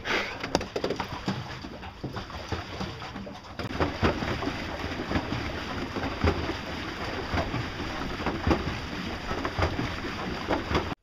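Water rushing and splashing along a moving boat's hull and the wooden boards towed beside it, a steady wash with many small splashes that gets louder about three and a half seconds in.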